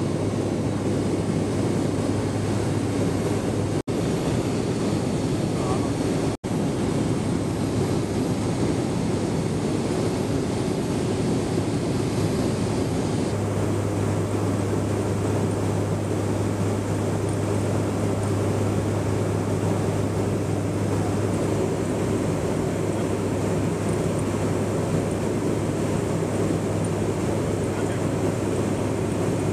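Steady drone of a KC-130J Hercules tanker's turboprop engines and propellers heard from aboard the aircraft, with a strong low hum under rushing air noise. The sound drops out for an instant twice, around 4 and 6 seconds in, and its tone shifts slightly about 13 seconds in.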